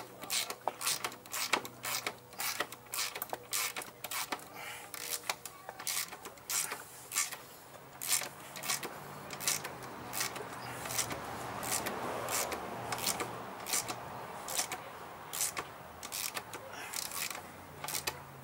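Hand socket ratchet clicking in short runs of a few clicks at a time as engine mounting bolts are turned down by hand. There is a softer rasping noise a little past the middle.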